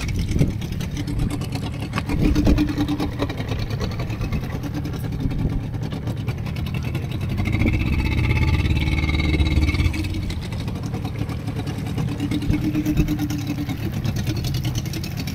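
A fishing boat's engine running steadily, a continuous low hum.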